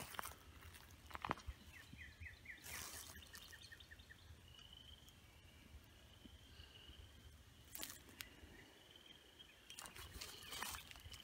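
Faint woodland quiet with a few scattered crunches of feet in dry fallen leaves. A small bird gives a quick run of about ten high chirps about two seconds in, and thin high calls come faintly later on.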